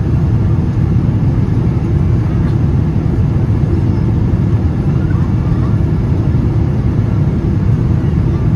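Steady low rumble of engine and airflow noise inside the cabin of a Boeing 777-200 airliner, heard from a window seat over the wing during the descent on approach.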